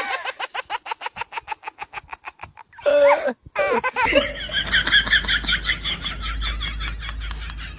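High-pitched, rapid laughter, a fast even run of 'ha' pulses that breaks off about three seconds in. A second stretch of quick laughter follows at about four seconds, over a low rumble.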